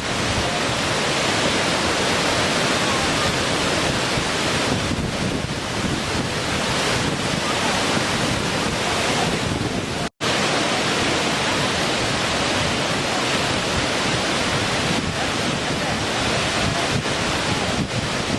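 Small waterfall: water pouring and splashing in a steady, even rush. The sound cuts out for an instant about ten seconds in, then resumes unchanged.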